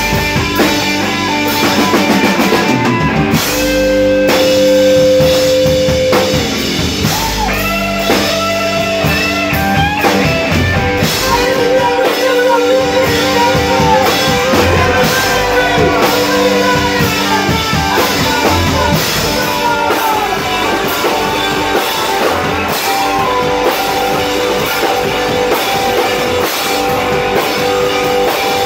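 Live rock band playing loud and unbroken: distorted electric guitars, bass and drum kit, with held lead notes that bend and waver over the drumming.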